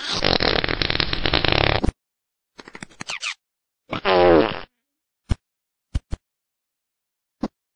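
A cartoon fart sound effect: a long, raspy fart for about two seconds, then a few shorter sputters. About four seconds in comes a short pitched cry, and a few sharp clicks follow near the end.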